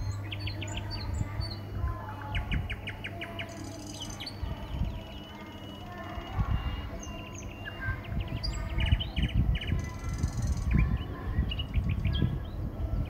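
Small birds chirping and calling, with quick runs of short repeated chirps and a few thin whistles, over a low rumbling noise on the microphone.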